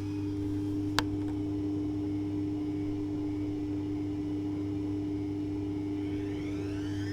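Privileg Classic 30612 washing machine humming steadily, with a single sharp click about a second in. Near the end a rising whine sets in as the drum motor speeds up.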